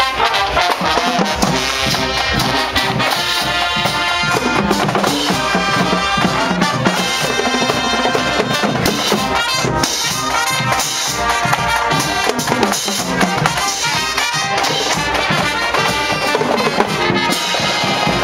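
Marching band playing live: trumpets, trombones and sousaphones over drums and crash cymbals, keeping a steady beat.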